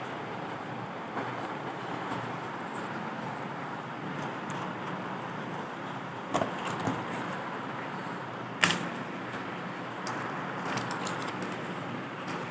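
Packaging being handled while a delivered parcel is opened: a few sharp clicks and light rustles over a steady background hiss, with the loudest click about two thirds of the way in.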